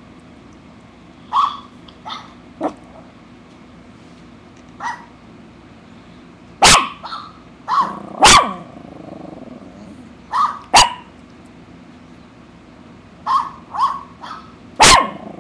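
Poodle barking: about a dozen short, sharp barks at irregular intervals, several coming in quick pairs, with the loudest ones near the middle and right at the end.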